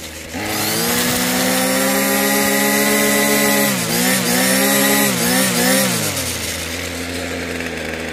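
Ryobi 25cc two-stroke string trimmer engine revving up to high speed about a third of a second in and holding there. Around the middle the revs dip and pick up again twice, then it drops back to a steady idle near the end.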